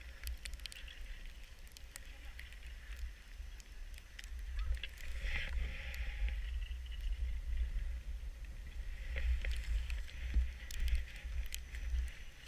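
Skis sliding over packed snow, a soft scraping hiss with scattered small ticks, over a steady low rumble of wind on the microphone.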